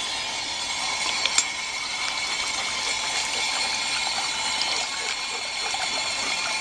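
Water from a drinking fountain's spout pouring steadily into a steel basin and a dog bowl held beneath it, with a single light click about a second and a half in.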